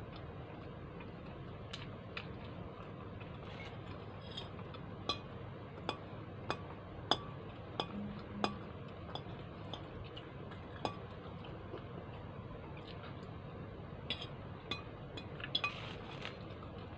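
Fork clinking and tapping against a plate in scattered light clicks, a few closer together about a third of the way in, over a steady low background noise.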